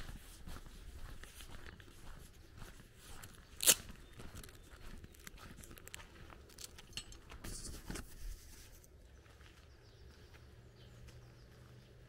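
Footsteps crunching on a gravel and dirt lane at walking pace, with one sharp click a little under four seconds in. The steps quieten after about nine seconds.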